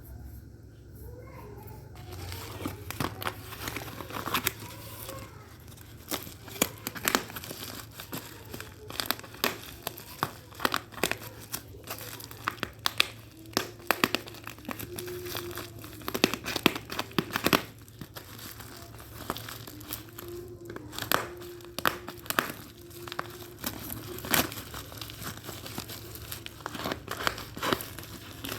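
Packaging being crinkled, rustled and torn open by hand: a dense, irregular run of crackles and rustles that starts about two seconds in.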